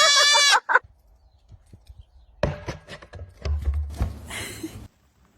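A goat's loud, wavering scream-like bleat cuts off about half a second in, followed by one short call. After a pause come scattered knocks and taps over a low rumble, with a brief hiss near the end.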